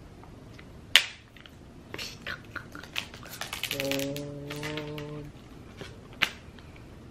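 Plastic shrink-wrap being torn and peeled off a new iPhone box, crinkling and crackling, with a sharp tap on the box about a second in and another near the end. A short held humming note sounds partway through.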